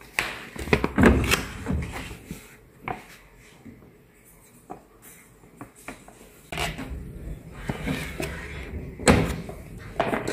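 Handling sounds at a top-loading washing machine: plastic knocks and clicks and packet rustling as laundry powder and a blue liquid are added to the machine's dispenser. There is a louder pair of knocks about nine seconds in.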